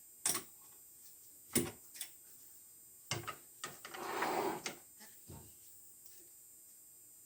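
Metal tools being handled by hand: a series of separate clicks and knocks, with a short scraping rustle about four seconds in, as the next drill bit (5/16") is swapped in at the lathe.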